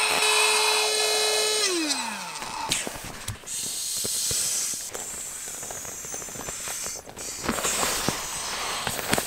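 A small electric air pump whines steadily, then is switched off and winds down with a falling pitch about two seconds in. After that comes hissing and rustling as the inflatable pillow is squeezed and its valve handled, with a few light clicks.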